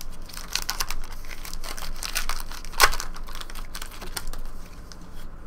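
2013 Upper Deck Goodwin Champions trading cards being flipped through and slid against each other by hand. They make a run of quick papery clicks and rustles, with one louder snap about three seconds in.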